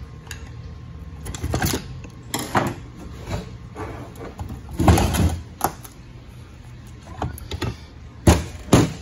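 Metal clunks and scraping as the front pump of a 4L80E automatic transmission is worked loose and pulled out of its case by hand, with a louder clatter about halfway and two sharp knocks near the end.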